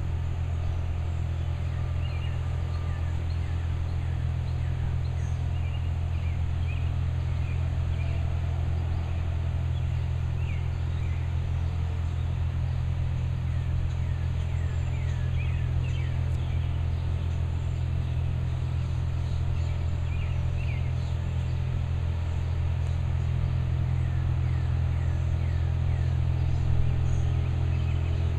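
Steady low engine drone from distant tree-shredding equipment running without a break. Over it, small birds chirp in short falling notes, in clusters about halfway through and again near the end.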